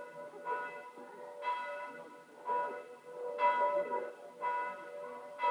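Church bells ringing, one stroke about every second, each ringing on and fading before the next.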